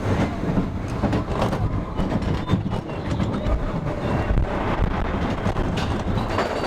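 A ride vehicle rumbling and rattling as it moves, with a dense low rumble and many irregular clattering knocks.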